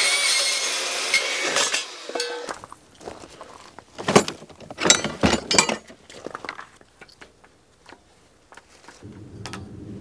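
Cordless power tool cutting steel hat channel, a loud hissing cut of about two and a half seconds that stops abruptly. A couple of seconds later come metal hand tools clinking and rattling in a plastic toolbox.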